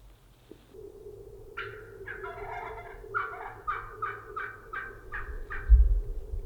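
Merriam's wild turkey hen gobbling: a rattling call that breaks into a quick run of evenly spaced notes, about three a second, over a steady low hum. A loud low thump comes near the end.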